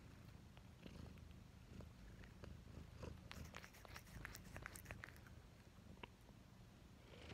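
House cat purring steadily right at the microphone, a low rumble, with a run of small clicks and smacks about three to five seconds in.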